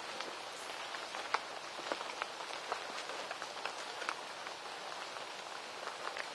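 Light rain pattering: a steady hiss with scattered, irregular drop-like ticks.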